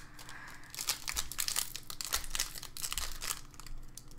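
Foil wrapper of a Donruss Optic football card pack crinkling as hands twist and tear it open. It is a quick, irregular crackling that starts about a second in and keeps going.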